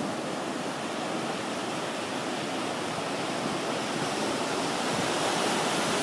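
Ocean surf breaking and washing over rocks: a steady rushing wash of white water, a little louder in the second half.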